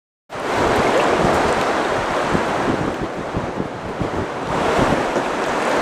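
Wind buffeting the microphone over sea water sloshing around a small open boat, cutting in suddenly about a third of a second in and running in gusts.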